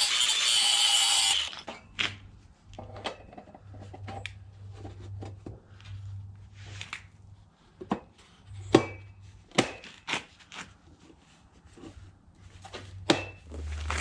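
A loud burst from a power tool that stops about a second and a half in, then scattered knocks, taps and scrapes of tools and parts being handled during drain installation work.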